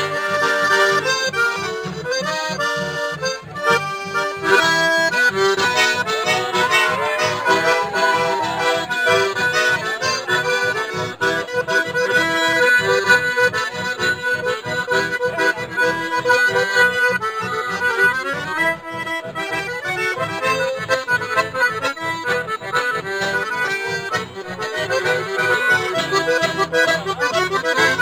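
Live accordion and acoustic guitar playing a traditional folk tune, the accordion carrying held, sustained notes over a steady strummed guitar beat.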